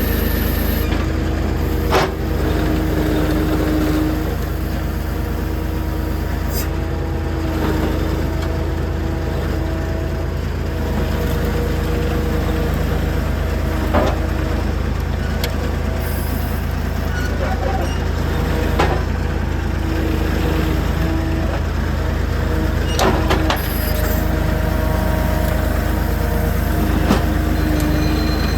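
A motor vehicle running steadily with a constant low rumble and a few held tones, with occasional sharp knocks or clunks.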